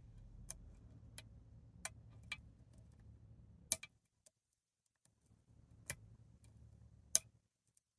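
Lock picks working the pins inside a pin tumbler challenge lock: small, sharp metal clicks at an irregular pace, one louder than the rest about four seconds in.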